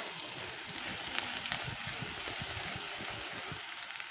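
Chopped leeks sizzling steadily in oil in a frying pan, with a couple of faint light clicks.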